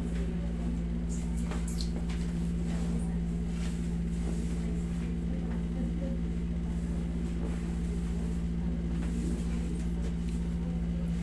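A steady machine hum at one constant pitch, with a few faint soft taps and rustles over it.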